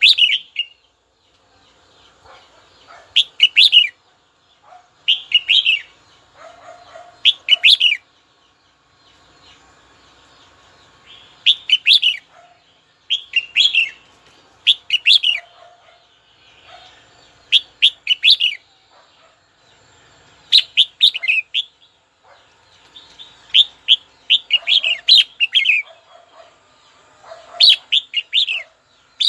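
Red-whiskered bulbul calling in short, bright chirping phrases, repeated every second or two.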